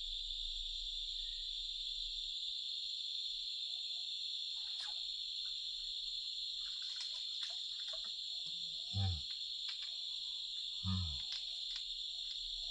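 Crickets trilling in a steady, unbroken high-pitched insect chorus. Near the end, two short low calls come about two seconds apart.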